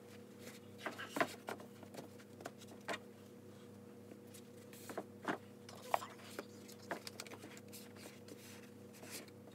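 Paperback books being stacked and slid into place on a bookshelf: scattered soft knocks and taps, over a faint steady hum.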